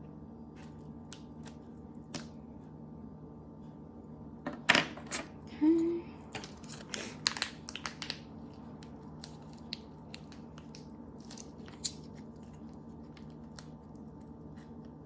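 Handling noise while assembling a gingerbread kit: scattered clicks and taps, with a cluster of louder clicks and crinkling between about four and eight seconds in, over a steady low hum.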